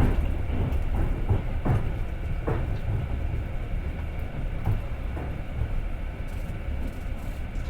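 Passenger train running along the track, heard from inside the carriage: a steady low rumble with a few irregular knocks of the wheels over the rails.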